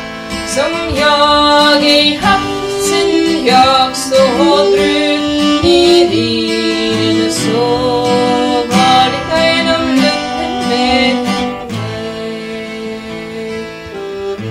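Instrumental break in a Swedish folk ballad: fiddle and strummed acoustic guitar playing the tune together with a whistle-type flute, getting quieter over the last few seconds.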